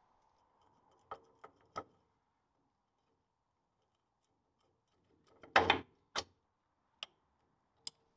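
Scattered sharp metal clicks and knocks from steel parts and tools being handled on a Land Rover Series 2 front axle swivel housing while its swivel pins are fitted. There are a few small clicks in the first two seconds, a louder clatter a little past halfway, then a couple of faint clicks near the end.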